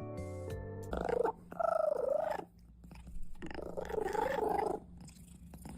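A cat meowing in three drawn-out calls with a rough, purr-like pulse, after about a second of music.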